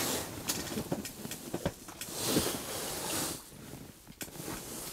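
Scattered light knocks and rustling of hands and clothing as a walleye is carried and lowered into an ice-fishing hole, with a short rushing hiss about two seconds in.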